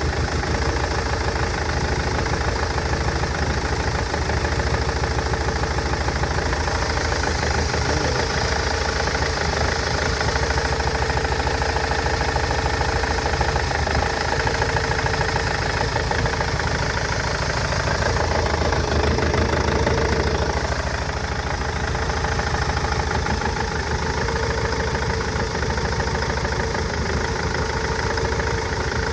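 Nissan Interstar / Renault Master van engine running steadily at idle with a misfire. The misfire persists even after the injectors, fuel pipes and injector wiring loom were replaced.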